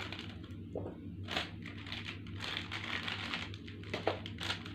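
Plastic snack packet being opened and handled by hand: irregular crinkling with scattered small clicks.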